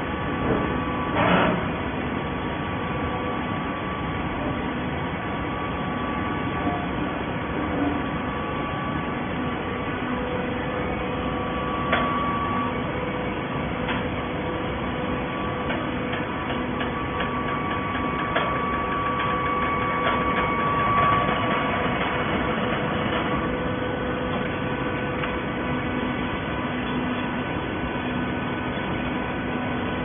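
Horizontal baler running: a steady industrial machine drone with a constant hum, and a few short knocks about a second in and again about twelve seconds in.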